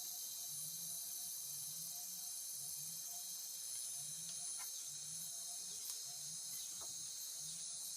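Steady high-pitched chorus of forest insects such as crickets or cicadas, with a short low call repeating about once a second beneath it and a few faint clicks.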